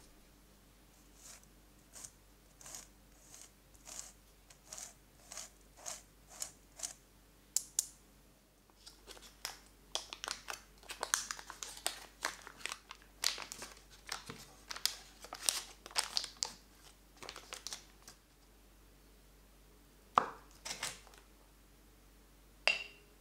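Foil-lined paper butter wrapper being unfolded and crinkled, a dense run of crackling lasting several seconds. Before it, soft rhythmic rustling about two strokes a second from a fine-mesh sieve of semolina being shaken, and near the end two sharp knocks.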